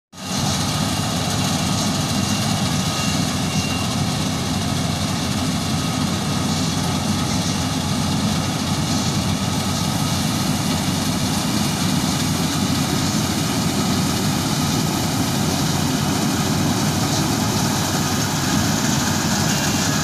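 Banglamark Marksan MS-1200 combine harvester running steadily as it cuts a rice crop: a continuous machine drone with a faint steady whine.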